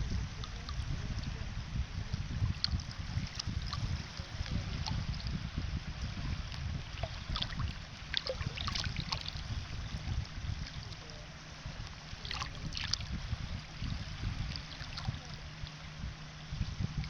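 Sea waves washing and splashing: a continuous rushing wash over a fluctuating low rumble, with scattered sharp splashes. A faint steady hum comes in about two-thirds of the way through.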